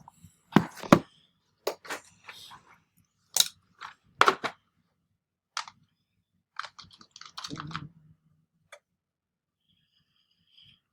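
Tokarev pistol parts being handled: a run of irregular, sharp metal clicks and knocks that stops about eight seconds in.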